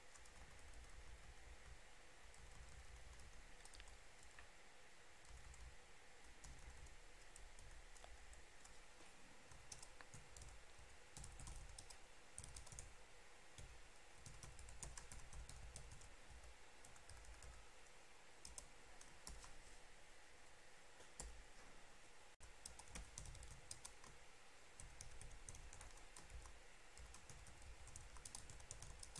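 Faint typing on a computer keyboard: irregular runs of key clicks over a low background rumble.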